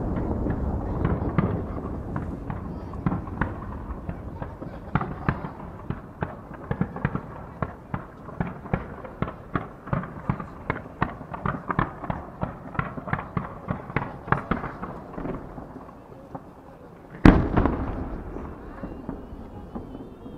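Fireworks: a low rumble dying away, then a quick string of sharp pops and cracks, several a second, from fan-shaped mines fired low at the water's edge. Near the end comes one loud boom that echoes as it fades.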